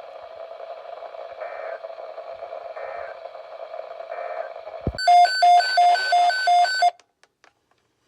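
Weather radio broadcast on dead air: a steady hiss with a hum. About five seconds in there is a low thump, then a rapid series of electronic alert beeps for about two seconds that cut off abruptly into silence.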